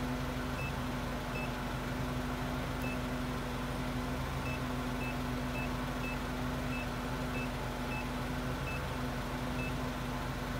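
Keypad of a Walz LT-100 forklift-scale indicator beeping: about a dozen short high beeps, one per button press, as a test-weight figure is keyed in. Under them runs the steady hum of the lift truck running.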